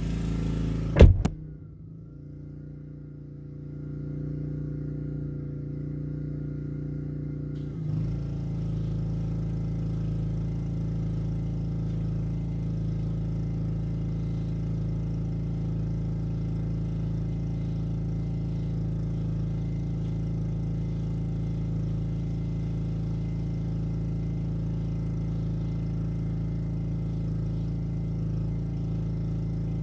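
A car door shuts with a loud thump about a second in, and the Black Max pressure washer's Honda engine runs at a steady pitch, muffled through the car, growing fuller and brighter about eight seconds in and then holding steady.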